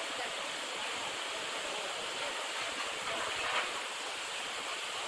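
Water rushing steadily, as through a breach in a beaver dam, with a brief louder surge about three and a half seconds in.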